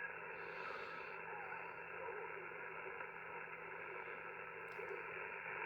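Steady faint hiss of static and band noise from an ICOM IC-705 amateur radio transceiver receiving with no signal, thin and narrow in tone as heard through a receiver's speaker.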